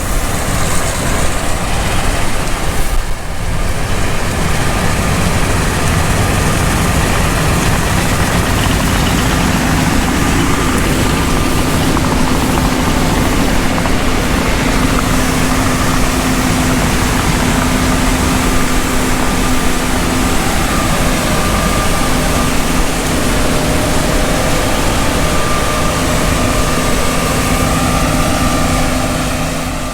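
John Deere S780 combine running steadily while harvesting rye: a constant loud machine drone with a few held tones running through it.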